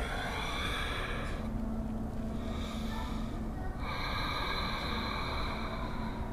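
A woman's slow, audible deep breathing: long hissing breaths in and out, with a new one starting about four seconds in. A low steady hum sits underneath from about a second and a half in.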